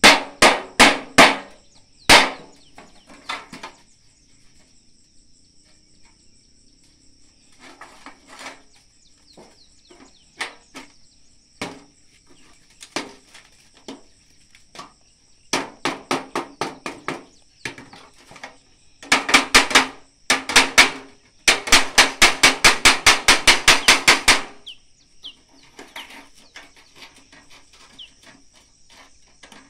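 Hammer blows in short irregular runs, ending about twenty seconds in with a fast run of roughly six blows a second for about three seconds. A steady high-pitched hum runs underneath.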